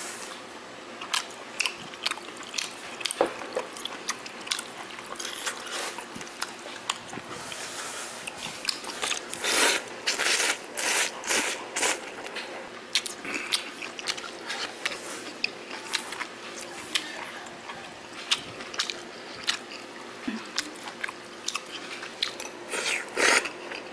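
Close-up eating sounds: irregular smacks, crunches and clicks of someone chewing jjamppong noodles and squid, thickest about ten seconds in and again near the end.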